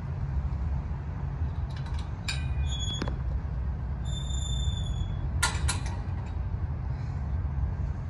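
Steady low outdoor rumble, with a few sharp clicks and a short high-pitched squeal lasting about a second, about four seconds in.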